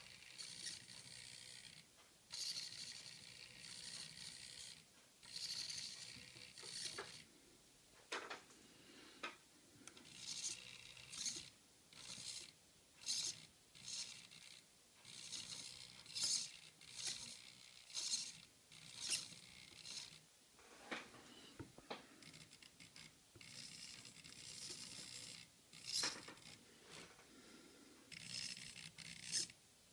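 Small radio-control servo in a Kyosho 1/8 Honda NSR500 Hang On Racer motorcycle whirring in many short bursts with brief pauses between them, as it is driven back and forth under test.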